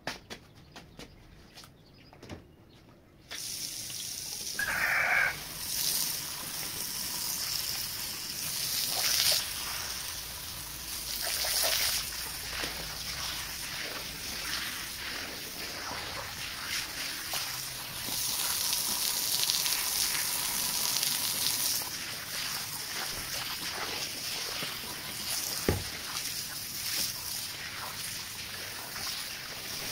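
Water gushing and splashing onto a wet rug being rinsed, a steady hiss that starts about three seconds in, with a single knock near the end.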